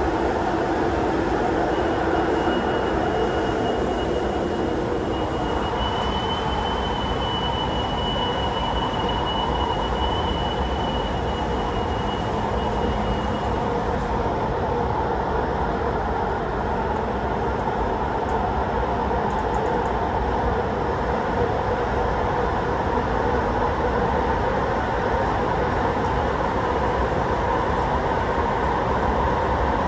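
MTR Tuen Ma Line Kinki Sharyo–Kawasaki metro train running at a steady rumble. A thin, high, steady whine rides over it from about two seconds in until near the middle, stepping up slightly partway through.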